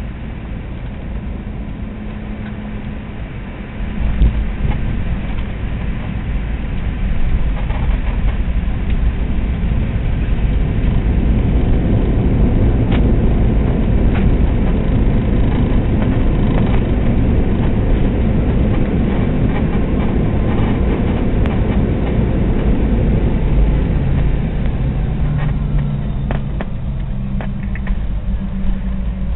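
Cabin noise of a Boeing 717 landing: steady engine hum, then about four seconds in a sudden rise in low rumble as the wheels touch down. A louder roar follows while the plane slows on the runway, easing near the end.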